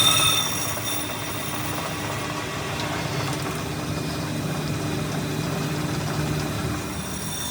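A steady machine hum: a low drone with a few faint high steady tones, with no clear strikes or changes.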